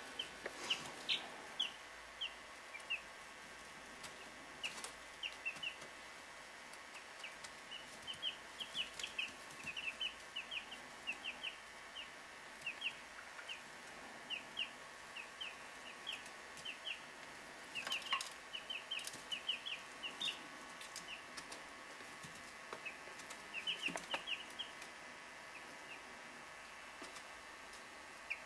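Three-week-old chicks peeping in many short, high chirps, on and off throughout, with a few sharp scuffs about halfway and again near the end. A faint steady hum sits underneath.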